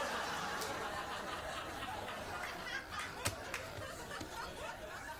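Audience laughter from a sitcom laugh track: a steady wash of many people laughing.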